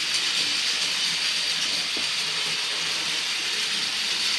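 Cheap battery-powered toy train running round a small circle of track: a steady, high-pitched whirring from its small motor and gears.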